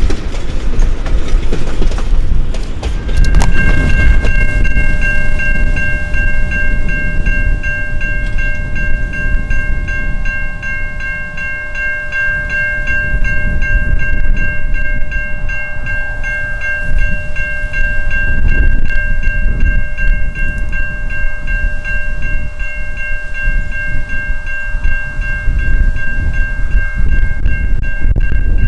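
Heritage diesel locomotive running with a loud, low rumble. About three seconds in, a steady high-pitched ringing tone joins it and holds.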